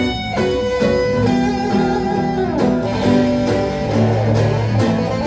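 Instrumental break of a guitar song cover: guitar playing a melody of held notes over a steady accompaniment, with no singing.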